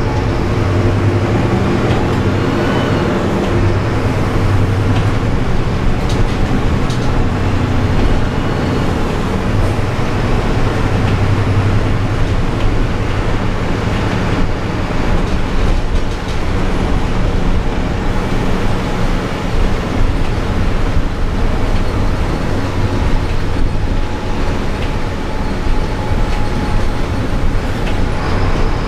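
City bus driving, heard from inside the cabin near the driver: a steady low engine drone that rises and falls, over a constant rush of road and tyre noise, with scattered light rattles and clicks.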